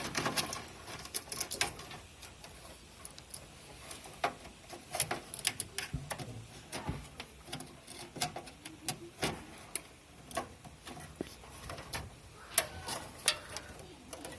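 Irregular plastic clicks and taps as a memory module is handled and pressed into a motherboard's DIMM slot, with a few sharper snaps near the end.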